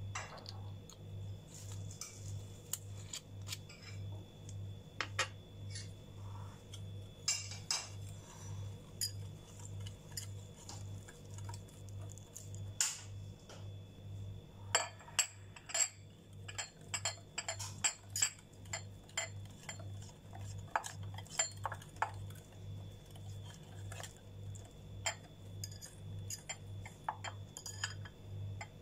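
Wire balloon whisk clinking and scraping against a glass bowl while beating a wet egg-yolk batter by hand, in irregular runs of quick clicks that are thickest in the middle. A low hum pulsing about one and a half times a second runs underneath.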